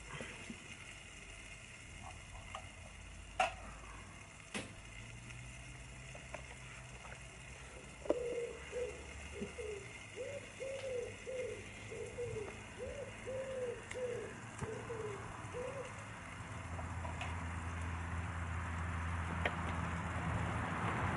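A pigeon cooing a run of about nine soft, evenly spaced coos about eight seconds in. Two sharp clicks come a few seconds before it, and a hiss grows louder near the end.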